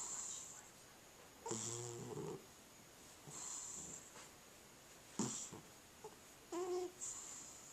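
A cat snoring in its sleep: a breath about every one to two seconds. Some breaths carry a low buzzing snore and others are a soft high hiss.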